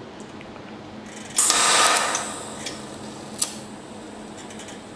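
A DC TIG welding arc striking about a second and a half in, with a loud hiss for about half a second that settles to a steady, quieter hiss as it heats the centre of a rust-seized broken steel bolt. A single sharp click comes about three and a half seconds in.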